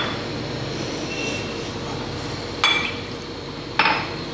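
Three sharp clinks of kitchen utensils, each ringing briefly: one at the start and two close together near the end, over a steady background hiss.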